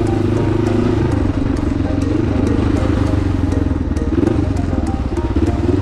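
Kawasaki KLE500 parallel-twin adventure motorcycle engine running steadily under way on a trail, with scattered light clicks over it.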